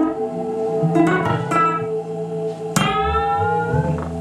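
Improvised music: plucked string notes, one ringing and sliding upward in pitch, over a steady held drone.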